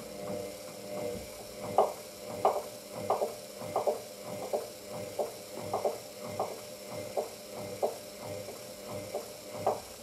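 Hoover DYN9144D3X washing machine's drum turning slowly to balance the load before spin: a low motor hum with soft thumps every half second or so as the wet washing tumbles. It keeps failing to balance the load, so the spin will not start.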